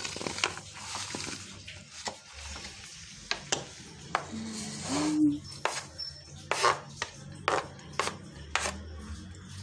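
Knife scraping chopped guava off a plastic cutting board into a bowl: a run of irregular clicks, taps and scrapes as the blade hits the board and the pieces drop.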